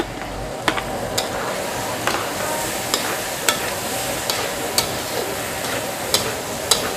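Boiled taro root pieces frying in thick spiced masala in a large metal kadai, with a steady sizzle, while a slotted spatula stirs them. The spatula scrapes the pan and strikes it with sharp clicks every half second or so.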